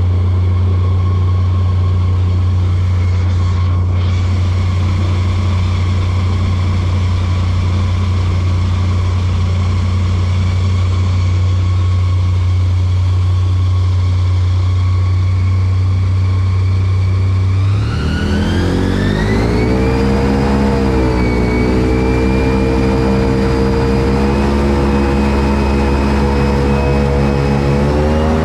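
Airboat's 383 stroker small-block Chevy V8 and its air propeller running steadily at a low, even speed, then revving up about two-thirds of the way through and holding a higher, slightly wavering speed, rising again near the end.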